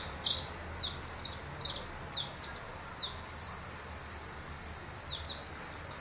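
Baby chick peeping: a string of short, high peeps, several in the first three seconds, then a pause of about two seconds before a few more near the end.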